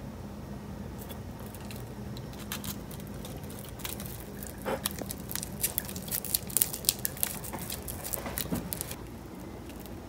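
Dry, crisp nori sheet crackling and crinkling as hands press and roll it around rice and fillings into a hand roll; scattered at first, then a dense run of sharp crackles about four seconds in that stops shortly before the end.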